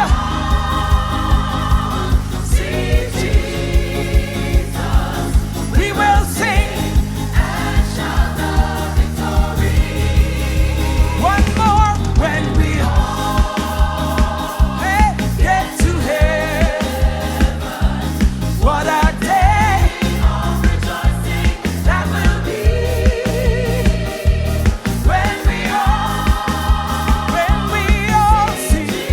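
Gospel praise team and choir singing a hymn with a live band, voices in held, wavering notes over a steady drum beat and bass.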